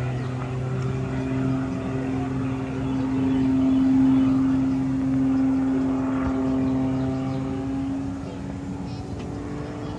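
Aerobatic stunt plane's engine droning overhead with a steady pitch. It grows loudest about four seconds in, then eases off while its pitch rises a little near the end.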